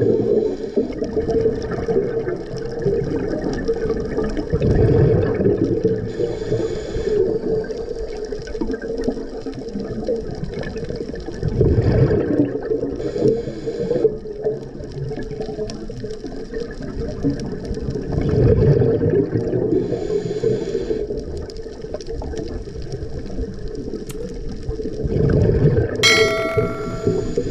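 Scuba diver breathing through a regulator, heard underwater: a hiss on each inhale and a rush of exhaled bubbles about every six to seven seconds. Near the end a short bright chime rings out once.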